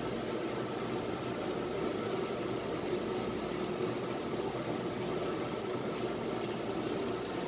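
A steady mechanical hum with an even hiss, unchanging throughout, like a motor or fan running.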